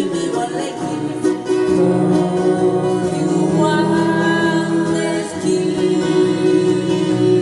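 Live acoustic guitar band playing an oldies pop song, with strummed guitars under long held sung notes.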